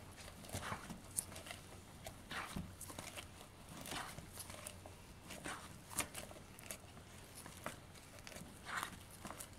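Matte plastic pocket pages of a banknote album rustling and crinkling as they are turned and smoothed by hand, with scattered sharp little clicks.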